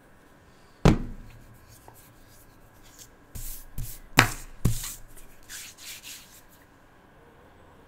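A plastic bottle set down on a tabletop with one sharp knock. A few seconds later comes a hand rubbing and brushing across paper, with a couple of light knocks among the scratchy strokes.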